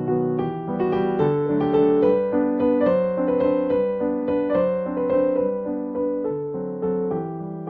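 Background music: a gentle keyboard tune with a steady run of notes.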